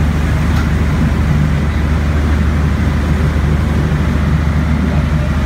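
A yacht's engines running steadily while underway, a constant low drone with a rushing noise of wind and water over it.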